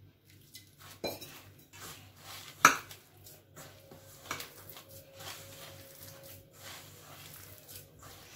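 A hand kneading crumbly gram-flour dough in a stainless steel bowl, with scattered knocks and clinks against the steel. The loudest knock comes about two and a half seconds in.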